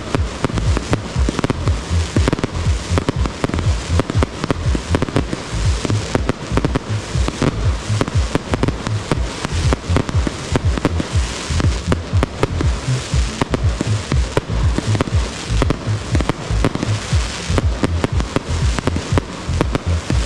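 Fireworks display in a heavy barrage: aerial shells and multi-shot cakes bursting in quick succession, a dense, unbroken run of bangs and crackle.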